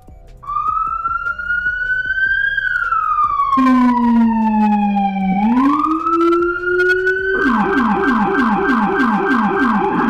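Federal Signal police siren wailing: one tone rises, then slowly falls, and a second, lower tone joins it about three and a half seconds in. About seven seconds in it switches to a fast yelp, about three cycles a second.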